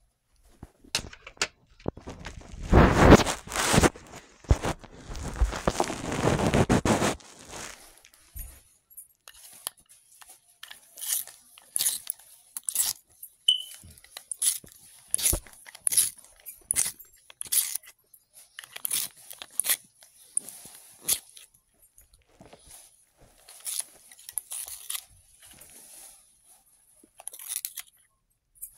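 Hands handling small objects: a few seconds of dense crinkling rustle, then a long run of short crunchy scrapes, one or two a second.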